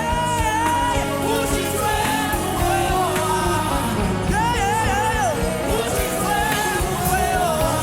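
Live gospel worship music: a band playing steadily while a singer holds long, wavering notes.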